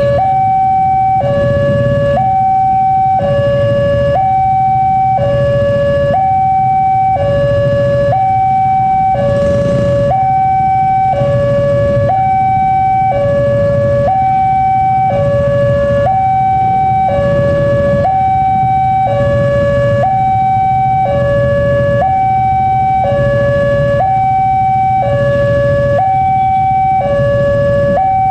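Railway level-crossing warning alarm sounding as a train approaches: an electronic two-tone signal, a higher and a lower tone each held about a second, alternating steadily. A low rumble runs underneath.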